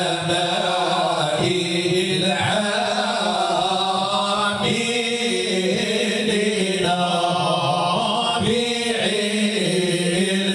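Group of men chanting Moroccan madih, devotional praise song, together through microphones, in long held, slowly ornamented notes.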